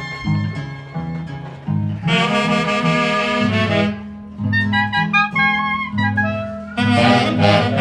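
Live Huancayo orquesta típica playing: saxophones and clarinets take up a loud melody about two seconds in, over a steadily repeating bass line.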